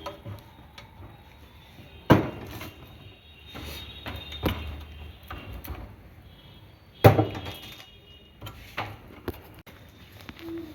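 Sharp knocks and clatter of hard objects: two loud bangs about five seconds apart, with lighter knocks between and after.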